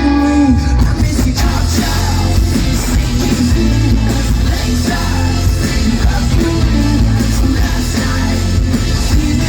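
Rock band playing live through a large concert PA, heard from the crowd, with heavy bass and drums.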